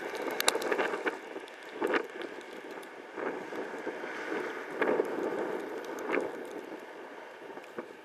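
Snowstorm wind buffeting the microphone, surging in repeated gusts, with scattered sharp ticks through it.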